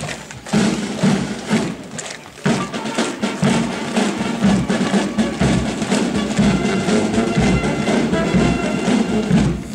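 Military marching band playing a march, a bass drum keeping a steady beat about twice a second under held notes from the band.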